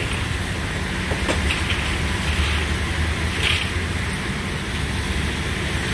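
Flatbed tow truck's engine idling steadily, a low even rumble.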